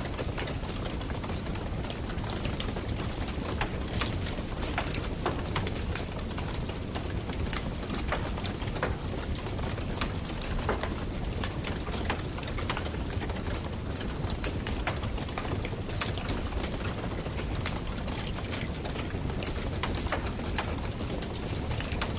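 Wood campfire burning: many sharp crackles and pops, scattered irregularly over a steady low rushing noise.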